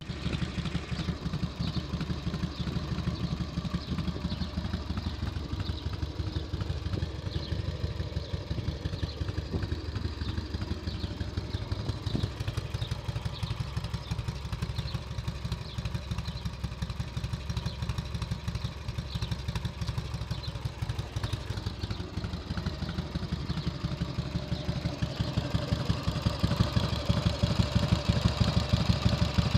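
1994 Harley-Davidson FXSTC Softail Custom's 1340 cc Evolution V-twin idling steadily on a points-and-condenser ignition, a little louder near the end.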